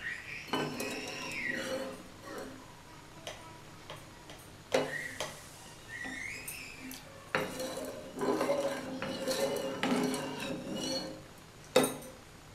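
Perforated steel ladle stirring and scraping in a nonstick kadai of unheated salted water, with several sharp clinks of metal against the pan and a few brief high squeaks.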